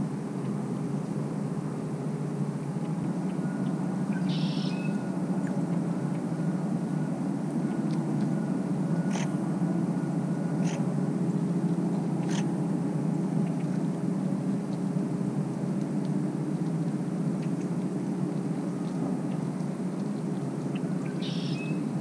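A steady low mechanical hum runs throughout. Two short high-pitched calls come about four seconds in and again near the end, and a few faint clicks fall in the middle.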